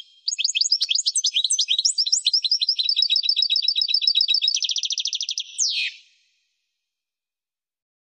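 European goldfinch song: a fast run of high, liquid twittering notes that runs into a quick, even trill and ends with a short, buzzy falling note about six seconds in.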